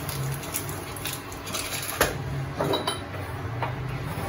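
A few sharp clinks and knocks of kitchen things being handled, as a small spice box is shaken over a metal kadai and set down on the counter, over a steady low hum.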